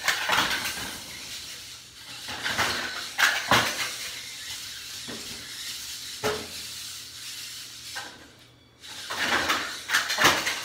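VEX competition robot driving and swinging its lift arm: bursts of electric motor whir with its metal frame and parts clattering, in several separate spurts.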